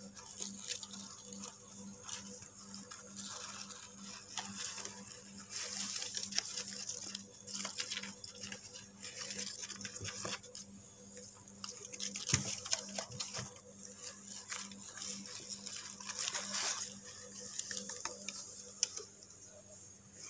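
Rustling and scratching of shredded paper and wood-shaving bedding in a cardboard box as a hand digs through it to lift out parakeet chicks. It comes and goes in patches, over a faint low hum that pulses about twice a second.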